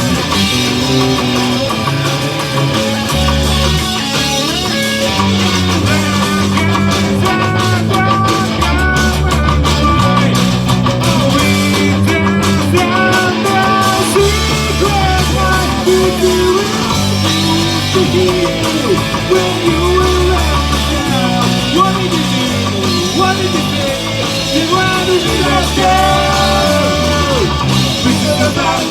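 Rock music led by guitar over a bass line that moves in steady blocks.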